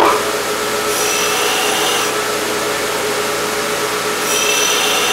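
Belt grinder running with an 80-grit ceramic belt. Hardened tool steel is pressed to the belt twice, for about a second starting a second in and again near the end, adding a high grinding whine over the steady motor noise. This is grinding the decarburized skin off a heat-treated tool.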